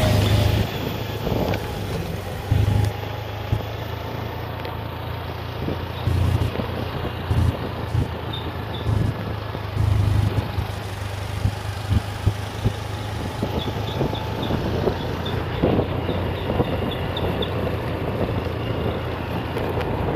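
Motor scooter running along a road with engine and road noise, while wind buffets the microphone in irregular low gusts.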